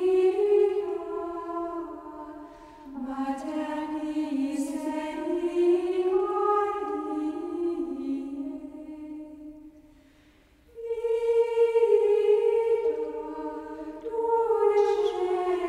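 Background music of slow vocal chant, voices holding long notes that glide from pitch to pitch. It fades out briefly about ten seconds in, then comes back.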